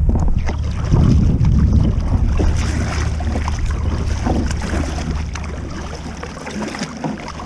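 Kayak paddle strokes splashing in choppy water, under a heavy low rumble of wind on the microphone that is strongest about one to two seconds in.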